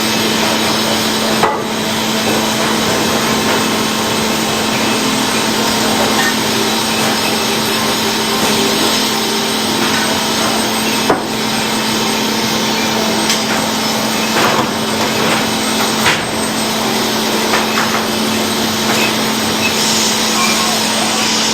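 Sawmill machinery running steadily with a constant low hum, with a few sharp wooden knocks and clunks as lumber is cut and handled.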